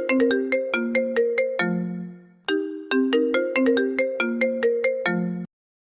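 Mobile phone ringtone: a short melodic phrase of quick notes repeating, then cutting off abruptly near the end.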